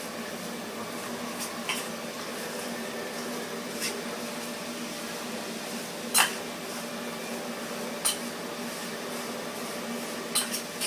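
Sawdust being stirred into melted wax in a tin can, with a few sharp clinks of the stirrer against the metal (the loudest just past halfway), over a steady low hum.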